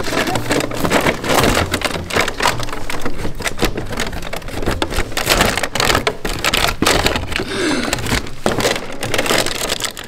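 Cardboard tearing and paper and plastic wrapping crinkling close up as a punch-out circle on a cardboard prize board is torn open and a wrapped prize is pulled out. The crackling rustle is dense and continuous.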